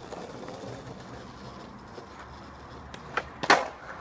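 Skateboard wheels rolling over paving with a steady rumble, then a few sharp clacks of the board striking the ground about three seconds in, the loudest about half a second after the first.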